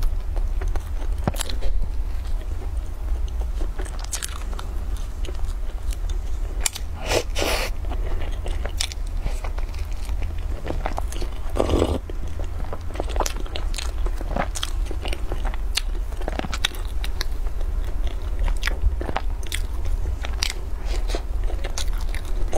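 Close-up mouth sounds of eating a stuffed bun: bites, crunchy crackles and wet chewing, with irregular sharp clicks and louder clusters about a third and halfway through. A steady low hum runs underneath.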